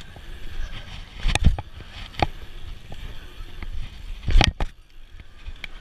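Bicycle riding an asphalt pump track: steady tyre rumble with scattered rattles from the bike, and two loud knocks, about a second and a half in and again after about four and a half seconds.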